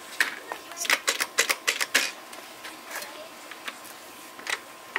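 Irregular sharp metallic clicks and taps: a quick cluster in the first two seconds, then a few spaced clicks. They come from handling a small motorcycle engine set up for a compression test, just before it is turned over.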